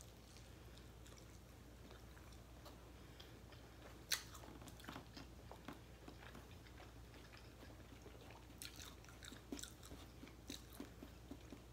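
Faint eating sounds of crispy oven-baked chicken wings being bitten and chewed: scattered soft crunches and mouth clicks, with one sharper crunch about four seconds in and a run of them near the end.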